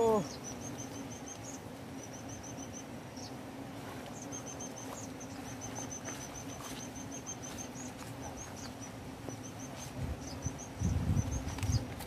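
Wasps buzzing around a broken-open paper nest, a steady low hum, with rapid high chirping trills over it. Rustling and a few low thumps from handling the nest debris come near the end.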